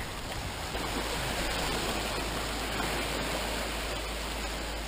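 Sea water washing and swirling over shoreline rocks, a steady rushing hiss of surf.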